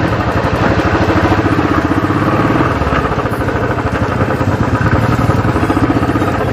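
Royal Enfield motorcycle's single-cylinder engine running under way with a fast, even beat, heard from the rider's seat as the bike rides through a shallow stream and onto a dirt track.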